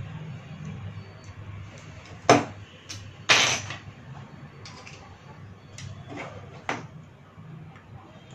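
Knocks and clicks of a plastic dome CCTV camera and a screwdriver being handled and set down on a desk while the camera is taken apart: two loud knocks a little over two and three seconds in, the second longer, then several lighter clicks, over a low steady hum.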